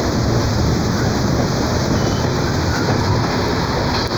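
Passenger train cars running at speed, heard from on board at an open window or door: a steady rumble of wheels on the rails.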